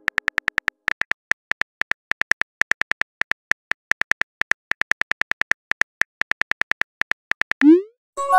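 Phone keyboard key clicks, about six a second, as a text message is typed letter by letter. Near the end they give way to a short rising swoosh as the message is sent.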